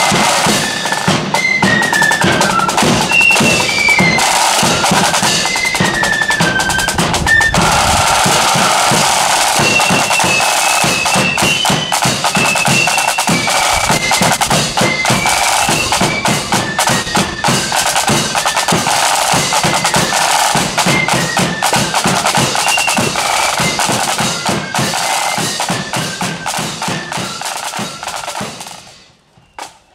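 Marching flute band playing a tune, the flute melody carried over side drums rolling and beating and a bass drum keeping time. The music fades out near the end.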